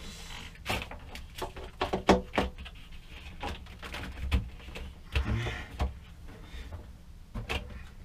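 Irregular clicks, knocks and clunks of hands working at the cable terminals of boat batteries, disconnecting them for testing.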